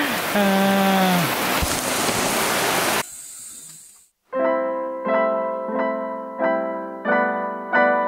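Steady heavy rain with a brief voice about a second in, cut off sharply about three seconds in. After a moment of silence, background piano music starts, a note or chord struck about every two-thirds of a second.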